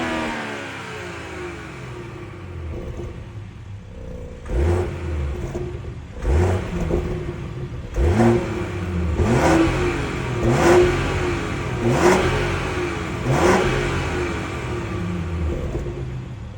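BMW 540i xDrive's B58 3.0-litre turbocharged inline-six, on its stock exhaust, revved in a series of about seven quick throttle blips. The revs rise sharply and fall back each time, with the engine settling between blips. At the start the revs are falling from an earlier rev.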